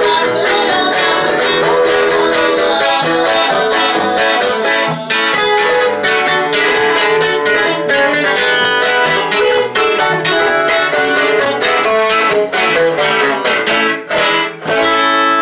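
Acoustic guitars strummed together in a fast, steady rhythm. Near the end the strumming stops and a last chord rings out.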